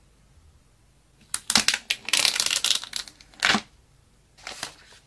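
Packaging of an iPhone 12 Pro box crinkling and tearing as it is handled and opened: about two seconds of rustling with sharp crackles, then a shorter, softer rustle near the end.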